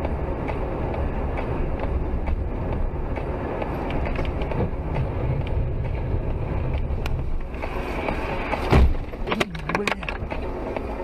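Steady road rumble and engine noise inside a moving car, recorded by a dashcam. About nine seconds in there is one loud thump, followed quickly by a few sharp knocks.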